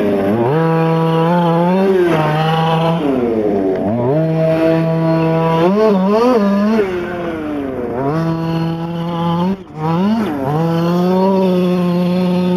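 Losi 5ive T RC truck's small two-stroke gas engine being driven hard: it revs up, holds a high steady pitch, then drops back as the throttle is lifted, about four times over, with one brief sharp cut near the end.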